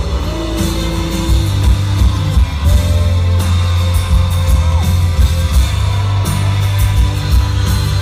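Live rock band playing, with a sung vocal line over a steady bass and drums.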